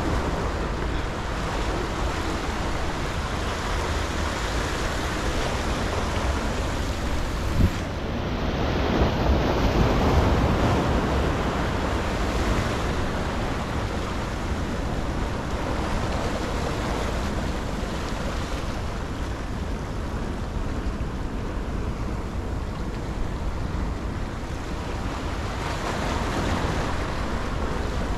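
Ocean surf washing and breaking against the rocks of a jetty, a steady wash that swells louder for a few seconds about eight seconds in, with wind rumbling on the microphone. A single sharp knock just before the swell.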